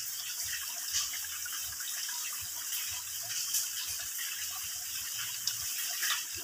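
Water trickling and dripping in thin streams from a mossy rock overhang into a shallow pool: a steady splashing patter with a few sharper drips standing out.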